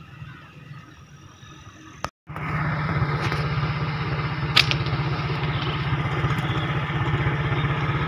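After a short faint stretch and a sudden cut about two seconds in, a small engine idles steadily with a fast, even low pulse. There is a sharp click partway through.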